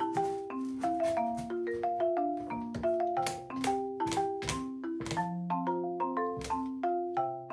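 Background music: a light, bouncy melody of short plucked-sounding notes on marimba-like mallet percussion, with small percussion taps keeping the beat.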